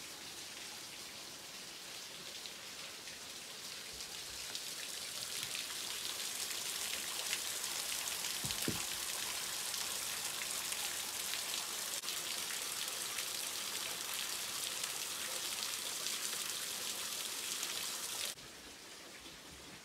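Water spraying from a leaking pipe under a wooden bathhouse, spattering steadily onto rocks and debris. It grows louder after a few seconds and cuts off suddenly near the end.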